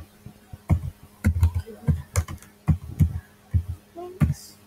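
Typing on a computer keyboard: a run of irregularly spaced key clicks.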